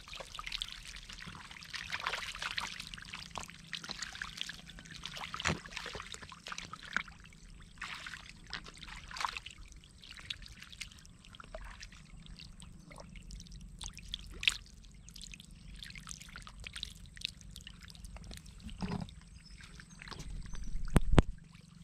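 Fish thrashing and splashing in a shallow, muddy trickle of water left in a drained pond: a run of many quick small splashes over the trickling water, with a louder burst of splashing near the end.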